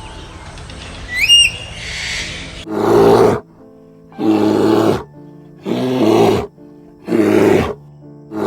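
An animal's loud calls, repeated about every second and a half, over steady background music. A short rising whistle-like call comes about a second in, before the series begins.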